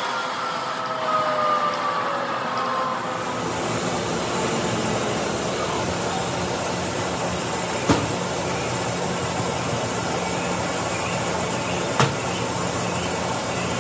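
Truck-tire buffing machine and its dust-extraction blower running with a steady rushing noise. A whine falls in pitch over the first three seconds as something spins down, then a steady hum settles in. There are two sharp knocks, about eight seconds in and again about four seconds later.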